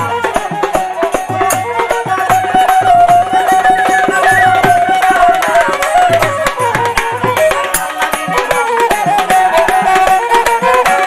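Bengali folk instrumental interlude: a bamboo flute plays a held, stepping melody over repeated dhol drum strokes.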